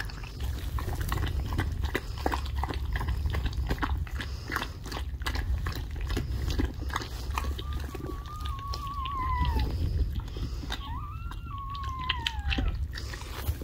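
Siberian Husky mother licking and chewing at a newborn puppy's amniotic sac: a steady run of wet, clicking licks and nibbles. Twice in the second half a dog lets out a long whine.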